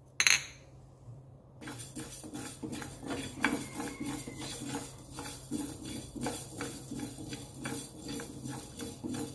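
Mustard seeds being dry-roasted in a non-stick pan and stirred with a wooden spatula: a dense, irregular rattle of small clicks and scrapes as the seeds are pushed around the hot pan. A short loud burst comes just after the start, followed by a quieter second before the stirring begins.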